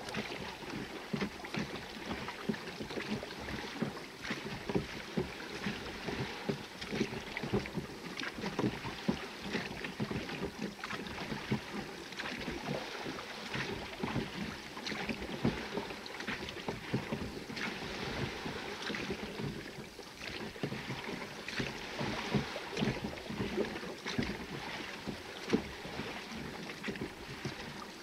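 Small rowboat being rowed: repeated oar strokes with short knocks and splashes, and water splashing against the hull.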